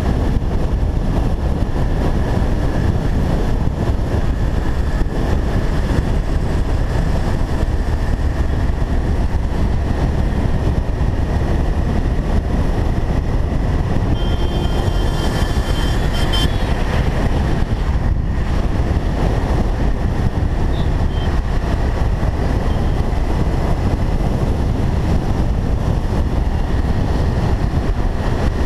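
Steady rush of wind and road noise from a motorcycle riding in traffic, with its engine running underneath. A brief high tone sounds about halfway through.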